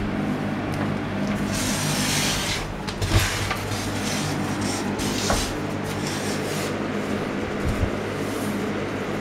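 Galaxy box fan running on its low speed setting: a steady motor hum and air rush, with rubbing and scraping noises and a few knocks from the fan being handled.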